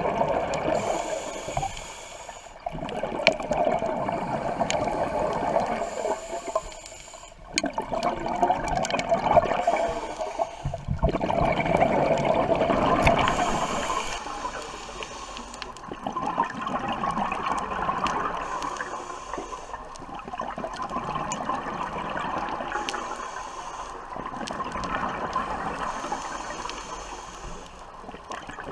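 Scuba diver breathing through a regulator underwater: loud bubbling exhalations alternating with short hissing inhalations, a breath cycle every few seconds.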